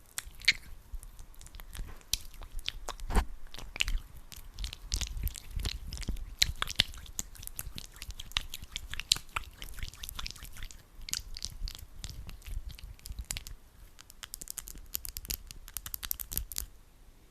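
Hands rubbing and squeezing sticky aloe vera gel: a dense, irregular run of tacky clicks and smacks, turning into a thicker high crackle for a couple of seconds near the end before stopping.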